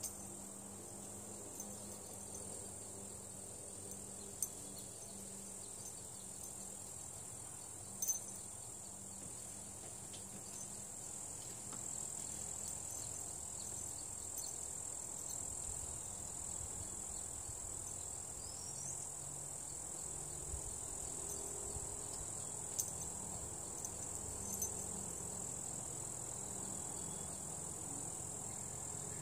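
Steady high-pitched chorus of insects, with a few short sharp clicks.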